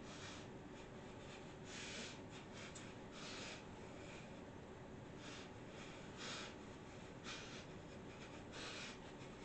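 Faint hissy rustles and breaths about once a second from a person dancing, with no music audible.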